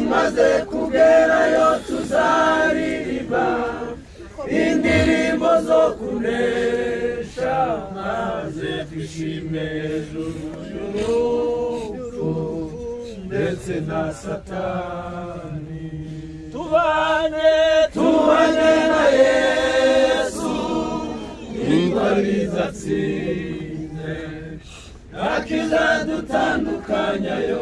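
A crowd of people singing a hymn together without accompaniment, in long phrases broken by short pauses.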